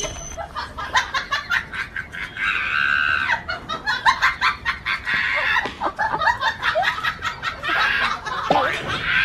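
Chickens squawking and clucking, with a long squawk about three seconds in and another near the end, over a run of short clicks and scuffles.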